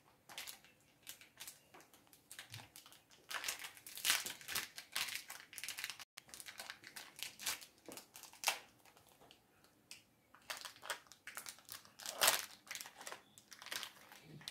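Plastic candy wrapper crinkling in irregular crackles as a small individually wrapped Krabby Patty gummy is unwrapped by hand.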